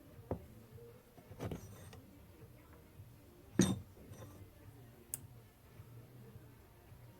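A few sharp metallic clicks and clinks from a hydraulic timing-chain tensioner and a thin metal plate being handled as the plunger is released to check whether it has locked; the loudest click comes about halfway through.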